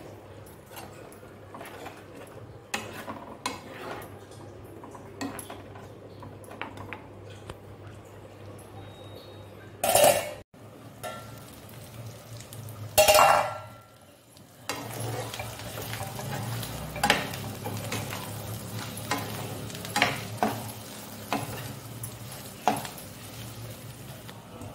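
Prawns frying in oil in a non-stick pan, sizzling, while a steel spoon stirs and scrapes them, tapping against the pan in short clicks. Two louder clatters come about ten and thirteen seconds in, and the sizzle grows denser in the second half as the prawns fry down.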